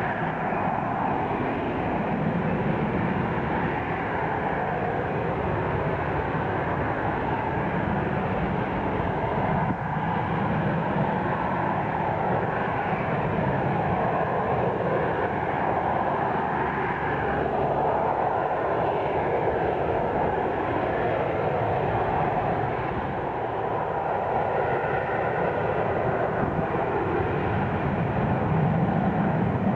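Harrier jump jet's Pegasus vectored-thrust turbofan running at high power as the jet hovers with gear down: a steady, loud noise whose tone slowly shifts and sweeps as the jet turns.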